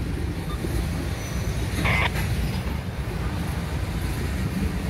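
CSX diesel locomotives running as they move slowly past: a steady low engine rumble, with a short higher-pitched squeak about two seconds in.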